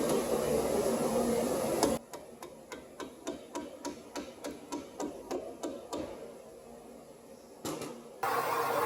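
Hand ratchet wrench clicking in an even rhythm, about four clicks a second for a few seconds, then fading, as a bolt is run in. A steady background hum cuts off abruptly about two seconds in and returns near the end.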